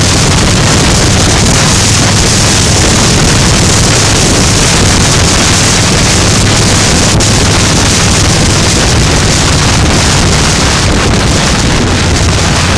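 Heavy wind rushing over the microphone of a camera on a motorcycle at cruising speed, over a steady low engine drone.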